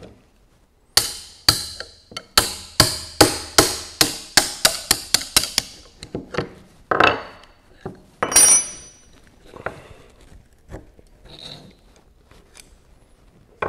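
Ball-peen hammer tapping a steel wrench braced against a stuck digit wheel of a mechanical calculator, driving the wheel down its shaft: about fifteen sharp metal-on-metal blows that quicken as they go, followed by a few scattered clinks and a brief metallic ring as the wheel works free.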